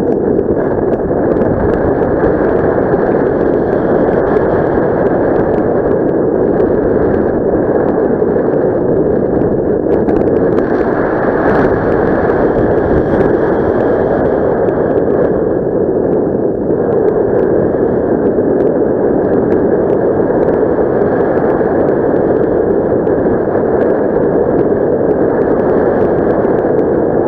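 Loud, steady rush of airflow over the microphone in paraglider flight, with no engine or voice, only slight swells and dips.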